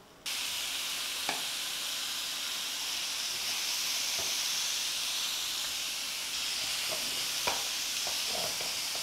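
Strips of beans, carrot and green capsicum sizzling in hot oil in a nonstick frying pan as they stir-fry. The steady hiss starts abruptly just after the beginning, with a few light taps.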